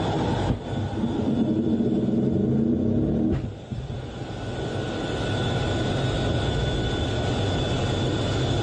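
Fighter jet's engines at full power heard inside the cockpit during a catapult launch from an aircraft carrier: a loud stretch with a rising tone that drops off sharply about three seconds in as the jet leaves the deck, then steady engine and airflow noise in climbing flight.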